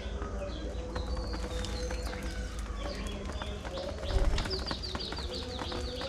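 A flock of budgerigars chirping and chattering, with a fast run of repeated chirps in the second half, over many small clicks of beaks pecking at seed in a metal tray. A low thump about four seconds in.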